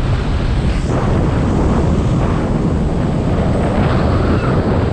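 Class 11 off-road race car running at high speed on a dirt course, heard from inside: a steady loud rumble of engine, tyres on dirt and chassis, with wind buffeting the microphone.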